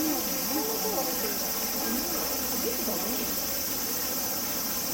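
A steady high-pitched chorus of insects shrilling, with faint murmuring human voices underneath.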